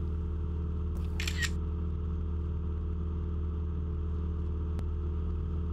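Steady drone of a Cessna 172's engine and propeller in the cabin. About a second in, a brief phone camera shutter sound as a selfie is taken.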